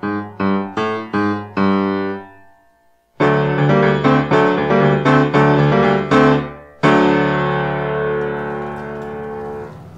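Piano score. A phrase of repeated notes fades out about two and a half seconds in, and after a brief break come louder repeated chords. One last chord, struck about seven seconds in, rings out and slowly fades.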